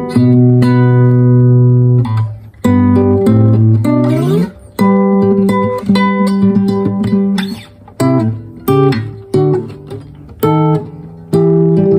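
LAG OC80 acoustic guitar played in short phrases of plucked notes and chords, with an upward slide about four seconds in and brief gaps between phrases.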